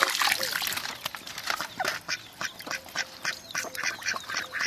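Ducks quacking in many short, sharp calls, a few a second. Water splashes in a steel bowl as fish pieces are washed, dying away in the first second.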